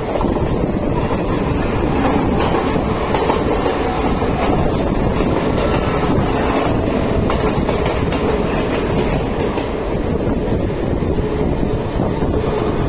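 Mumbai suburban local train running at speed, heard from on board: a steady, loud rumble of steel wheels on the rails.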